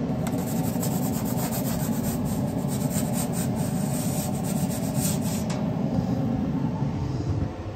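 Metal pizza peel scraping against a pizza stone in a run of short strokes as a flatbread is worked off the peel onto the stone. A steady fan whir runs underneath. The scraping stops after about five and a half seconds.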